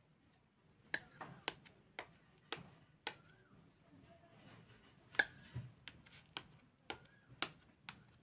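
Knife cutting dhokla into squares in a steel plate, its blade clicking sharply against the metal with each cut: about a dozen irregular clicks, with a pause of a second or two in the middle.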